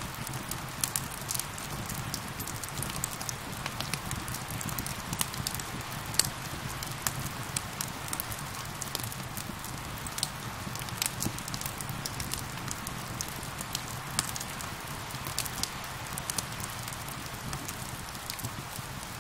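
Wood fire crackling over steady rain: a continuous hiss of rainfall with frequent irregular sharp pops and snaps, one louder pop about six seconds in.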